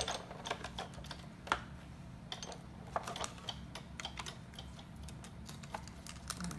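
Scattered light clicks and taps as a Big Shot die-cutting machine's crank finishes turning and its clear plastic cutting plates and framelit die are lifted apart by hand, over a low steady hum.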